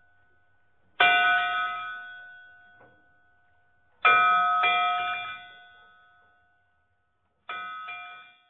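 A bell struck and left to ring: one stroke, then a pair of strokes in quick succession, then another pair near the end, each ringing out and fading over a second or two.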